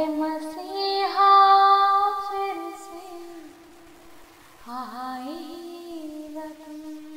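A woman singing two long drawn-out phrases of held notes that slide between pitches; the first phrase runs to about three and a half seconds in and is loudest around its middle, and the second starts near five seconds in and is softer.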